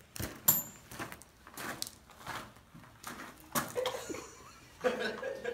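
Men laughing in short, breathy bursts, with a brief voiced chuckle near the end.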